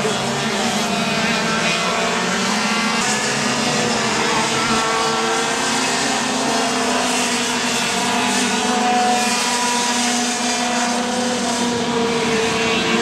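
Several racing kart engines running at high revs at once, a continuous engine sound whose pitches slowly rise and fall and overlap as the karts go round the circuit.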